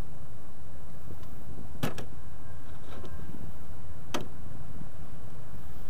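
A screwdriver working the screws of a throttle position sensor on a metal throttle body: a few sharp metal clicks, a close pair about two seconds in, a fainter one near three seconds and another about four seconds in, over a steady low rumble.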